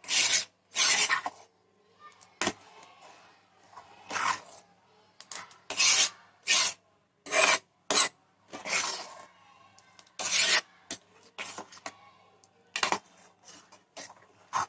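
Spoon or spatula scraping across the bottom of a pan while stirring a thick, halwa-like sweet as it cooks down. The strokes are irregular, roughly one a second.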